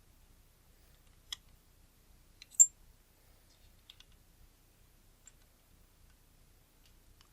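A few small, sharp metallic clicks and ticks from a screwdriver and the metal parts of a Nikkor 135mm f/2.8 AI lens as its screws are tightened during reassembly. The loudest is a bright tick about two and a half seconds in, and fainter ticks are scattered after it.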